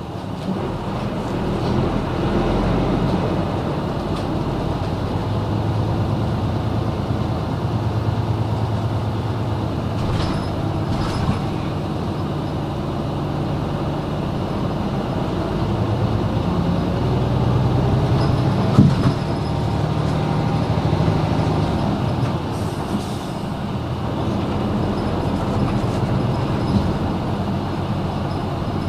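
Running sound of a 2001 Hino KL-HU2PMEA city bus heard on board: its diesel engine pulling and easing off, its note rising and falling as the manual gearbox is shifted. A single brief thump about two-thirds of the way through.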